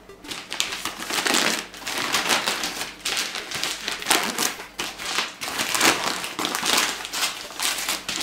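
Gift-wrapping paper crinkling and rustling in quick, irregular bursts as hands turn over a wrapped parcel and pick at the paper.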